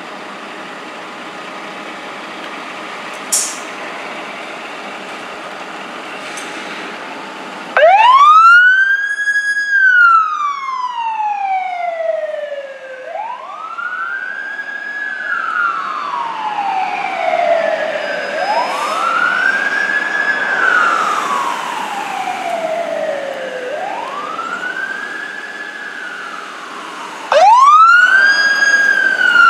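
A fire engine idling, with a short hiss about three seconds in. About eight seconds in its siren starts wailing, each cycle rising quickly and falling slowly over about five seconds, and it grows fainter as the engine moves off. Near the end a second, louder siren starts up from the rescue truck.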